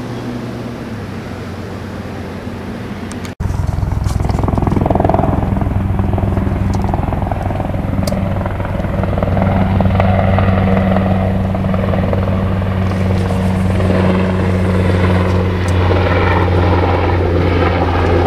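A steady motor drone with a low hum. It breaks off for an instant about three seconds in, then carries on louder.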